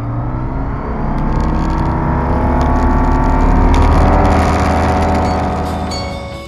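Pipistrel Virus SW's Rotax 912 four-cylinder aircraft engine and propeller at takeoff power on the takeoff roll, the engine note rising steadily in pitch and loudness over the first few seconds, then easing a little near the end.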